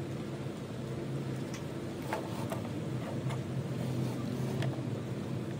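A steady low hum throughout, with a handful of short, light clicks from plastic markers being handled and set down beside the page.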